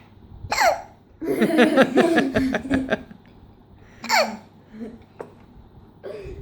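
A child's hiccups: a short squeak gliding down in pitch about half a second in and again about four seconds in. Between them comes nearly two seconds of loud, pulsing laughter.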